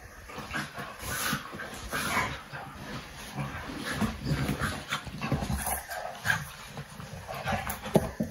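Fox red Labrador puppy and adult chocolate Labrador play fighting: irregular short dog noises with whines, mixed with the scuffling of paws and bodies on a padded dog bed, and one sharp, loud sound near the end.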